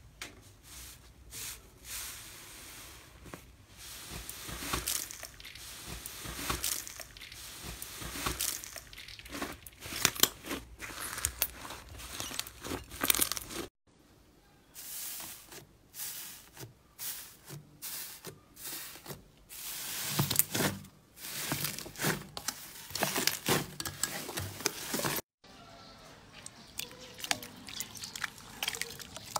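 Slime being pressed and squeezed by hand, giving off dense, irregular crackling and popping clicks. The sound breaks off twice.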